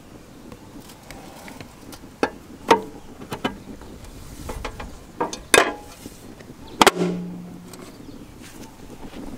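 Sharp clicks and knocks, about six in all between two and seven seconds in, from the restored mower's metal body being handled; the loudest knock near the end leaves a short low ring.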